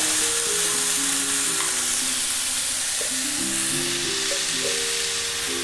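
Sprouted fenugreek seeds frying in oil in a non-stick pan, a steady sizzle, under a simple background melody of single notes.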